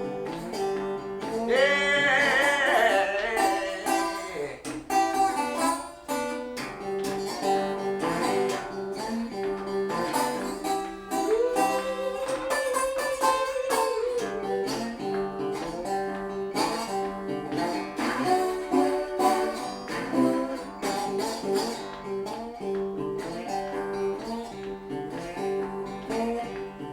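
Slide blues instrumental break on a resonator guitar in open G tuning: a driving, repeating bass riff with notes that glide up and down under the slide.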